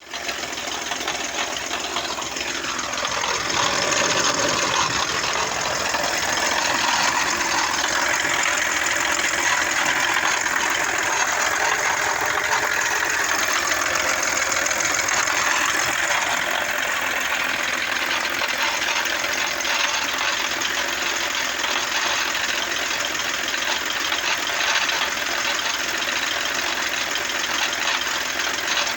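Audi A6 C5 2.5 TDI V6 diesel engine running with a grinding and knocking noise, which the owner cannot explain and suspects comes from the timing belt area. A tone slides down in pitch in the first few seconds, then the sound holds steady.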